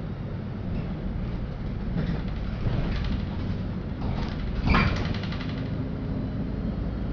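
LiAZ-5292.65 city bus heard from inside the cabin, its engine and running gear giving a steady low rumble, with a brief louder clatter about two-thirds of the way through.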